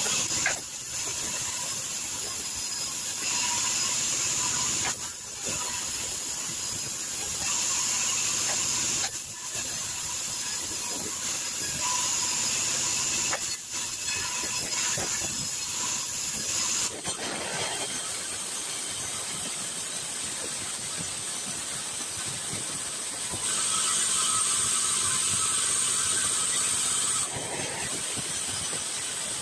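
Sawmill band saw running and cutting lengthwise through timber into boards: a steady mechanical running noise with a hiss that grows louder for a few seconds at a time as the blade passes through the wood.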